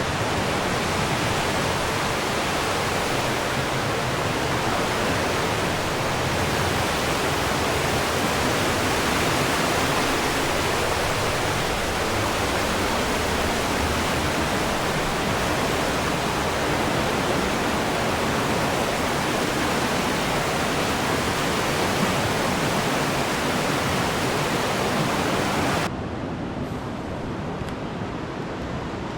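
A fast-flowing river rushing, a steady even wash of water. Near the end it drops suddenly to a quieter, duller rush.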